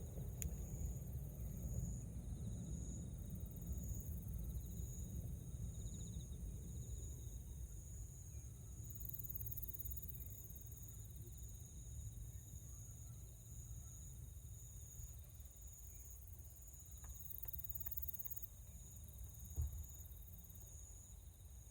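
Insects chirring steadily in high, pulsing tones over a low rumble that slowly fades away, with one faint knock near the end.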